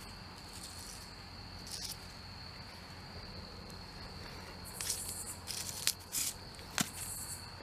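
Crickets trilling steadily on one high note, with a few short rustles and clicks from a stick being poked through the grass, the sharpest near the end.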